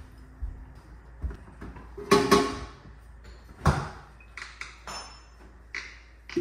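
A glass liquor bottle being handled and opened: a series of separate knocks and sharp glassy clinks, some ringing briefly, loudest about two seconds in.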